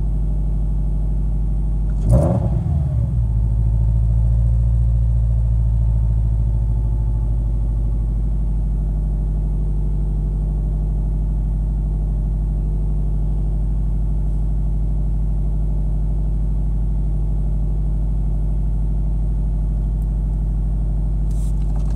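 2013 Scion FR-S's 2.0-litre flat-four boxer engine, with a Tomei equal-length header, catless front pipe and Invidia N1 exhaust, fast-idling steadily at about 1,500 rpm on a cold start, heard from inside the cabin. A sudden thump about two seconds in, after which the engine note swells slightly and settles back.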